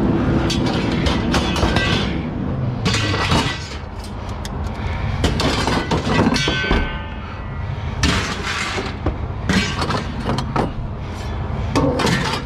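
Pieces of scrap metal thrown onto a scrap pile, clanging and crashing in a string of clustered impacts, some ringing briefly, over a low steady rumble.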